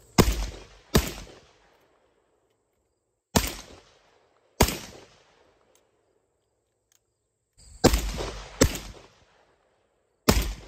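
Aksa S4 semi-automatic 12-gauge shotgun, a Benelli M4 clone, firing Winchester Universal loads: seven sharp shots, mostly in pairs about a second apart, with pauses of two to three seconds between the pairs, each shot followed by a short ringing tail. Fired while held away from the body, it keeps cycling and fires shot after shot.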